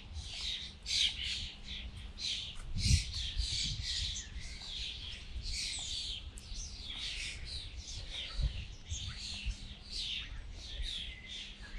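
Swifts screaming: shrill, high calls in quick succession throughout, with a few dull low thumps now and then.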